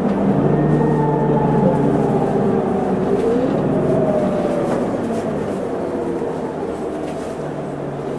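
Isuzu Erga city bus under way, heard from on board: the engine and drivetrain run steadily, with a whine that rises and falls in pitch with speed.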